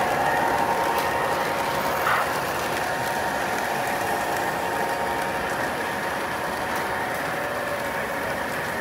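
Model trains running on a layout: a steady mechanical whir of the motors and wheels on the rails, slowly getting quieter as the passenger train moves away.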